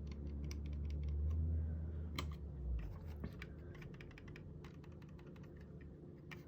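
Buttons of a Pwnage Ultra Custom Symmetrical wireless gaming mouse being clicked over and over, sharp clicks several times a second. A low rumble runs under the clicks for the first two and a half seconds.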